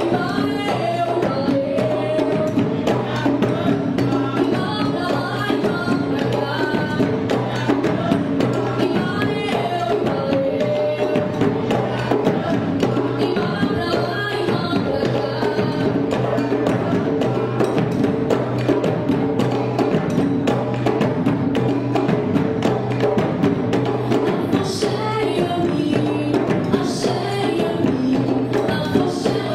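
Music with fast, steady percussion and a melody running over it.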